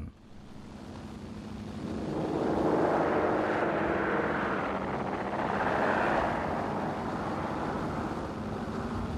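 Twin-engined propeller bomber taking off at full power, the engine noise swelling over the first few seconds as it passes close by, then holding steady as it climbs away.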